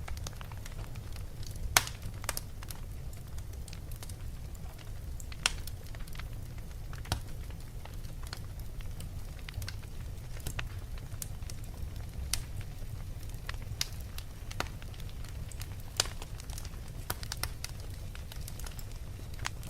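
Wood fire burning in a fireplace: a steady low rumble of flame with irregular sharp crackles and pops, the loudest pops about two seconds in, five and a half seconds in, and sixteen seconds in.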